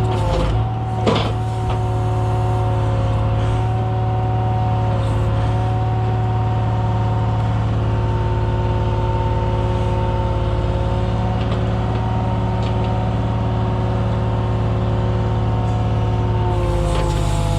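Scania lorry's diesel engine running at steady, raised revs to drive the lorry-mounted crane's hydraulics, with a steady pitched whine over a low drone. A short knock comes about a second in.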